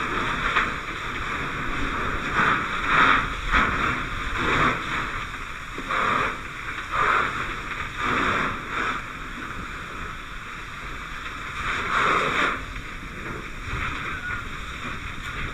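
Fire hose nozzle spraying water: a steady hissing rush that swells in irregular surges every second or two.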